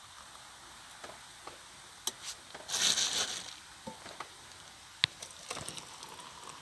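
Hot water poured from a metal kettle into steel-lined camping mugs: a short rush of pouring water about three seconds in, one sharp metallic clink about five seconds in, and light taps around it.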